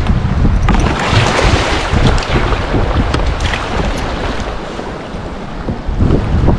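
Moving river water rushing and lapping around the paddleboard, with wind buffeting the camera microphone as a heavy low rumble.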